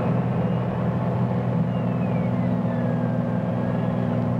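Single-engine piston airplane's engine and propeller droning steadily. A faint falling whine comes in the middle, as the landing gear is being lowered for an approach stall.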